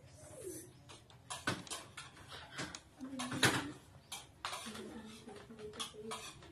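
A dove cooing in low, stepped notes, with several short sharp scratches or taps, the loudest about a second and a half and three and a half seconds in.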